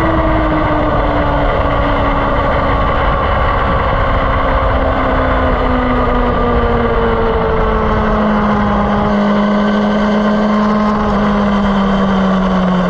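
Onboard engine of a track-day vehicle running with its pitch falling slowly and steadily as the vehicle slows. Wind rumbles on the camera microphone and eases about nine seconds in.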